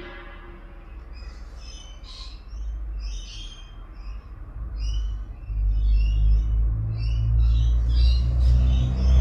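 Birds chirping again and again in short calls, with a low rumble that builds from about halfway and grows loud near the end.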